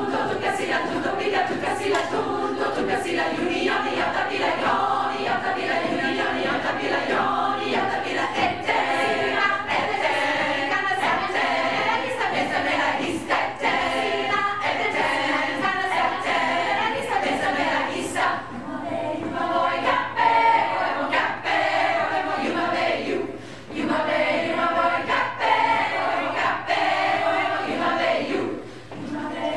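Large women's choir singing a cappella, many voices together, with brief pauses between phrases.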